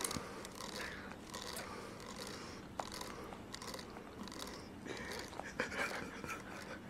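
Faint wet mouth sounds of a baby sucking and gumming a lemon wedge, with a few small smacks and clicks.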